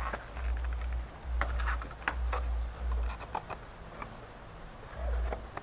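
Irregular small clicks and taps of plastic packaging and a diecast model airplane being handled, over dull low bumps of handling noise.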